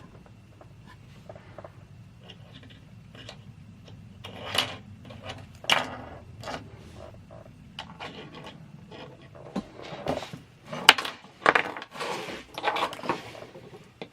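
Small plastic K'nex pieces and a foil blind bag being handled: irregular clicks, snaps and crinkles, with louder bursts a few seconds in and again near the end.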